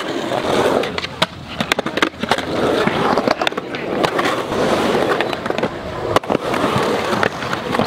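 Skateboard wheels rolling on the concrete of a skate park bowl, broken by repeated sharp clacks and knocks of the board. The loudest clack comes about six seconds in, as a skater works the lip of the bowl.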